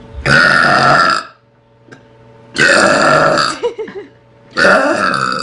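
A young woman burping loudly three times, each long burp lasting about a second, with short pauses between.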